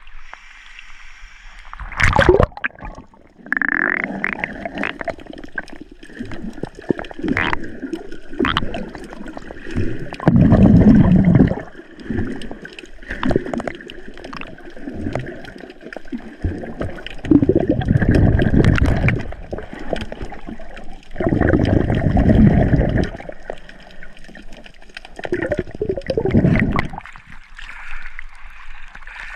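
Sea water gurgling and splashing around a camera held at and below the surface while snorkel fishing, with irregular louder sloshing surges every few seconds and small knocks and clicks.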